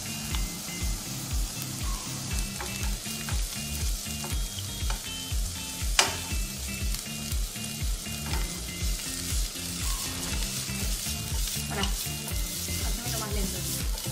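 Sliced red onion and green and red bell peppers sizzling in olive oil in a frying pan, the sizzle growing stronger in the second half. The vegetables are tossed in the pan near the end. A single sharp click about six seconds in is the loudest sound, and background music with a steady beat runs underneath.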